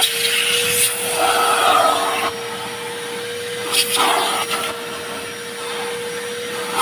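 Vacuum cleaner running with a steady motor whine, its rushing suction noise rising and falling as it works.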